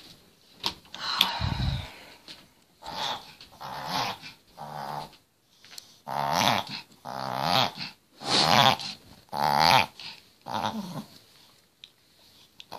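Long-haired chihuahua reverse sneezing: a run of about nine harsh, pitched gasping breaths, each a second or less, the loudest a little past the middle. The owner puts the fits down to a collapsing trachea, which her vet calls common in the breed.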